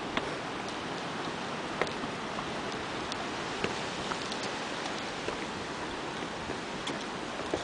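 Steady rushing noise of sea surf breaking on rocks, with scattered light clicks at irregular intervals.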